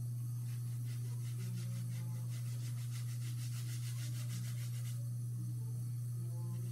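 An alcohol-soaked napkin rubbing at the glued front edge of a wig to loosen the glue, in quick repeated strokes that stop about five seconds in. A steady low hum runs underneath.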